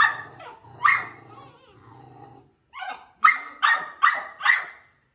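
Pit bull puppy barking in sharp, high yaps, twice at the start, then a low growl for about two seconds, then a quick run of about five yaps before it cuts off suddenly.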